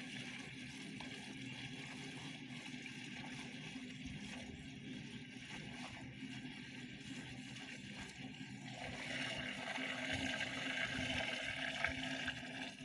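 Hydraulic oil pouring in a stream from a plastic can into a metal funnel, a steady splashing gurgle that grows louder about two-thirds of the way through.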